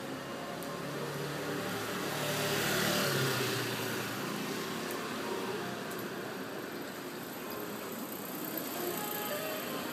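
Motor scooter passing close by, its engine swelling to loudest about three seconds in and fading away, over steady street traffic noise.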